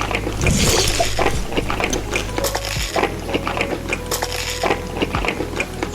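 Repeated light clinks and clicks of dishes and cutlery during eating, over a steady low hum.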